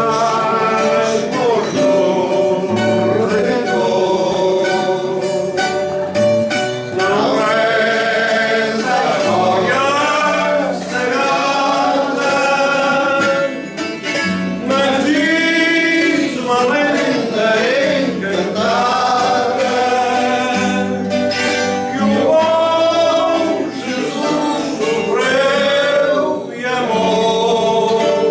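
Coimbra fado: a Portuguese guitar and a classical guitar play a plucked accompaniment, and a man's singing voice comes in about seven seconds in and carries on over them with a wavering vibrato.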